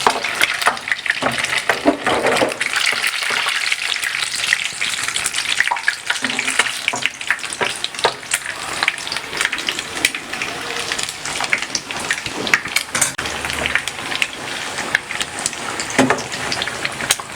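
Beer-battered fish fillet deep-frying in hot vegetable oil: a steady dense sizzle with many sharp crackles and pops.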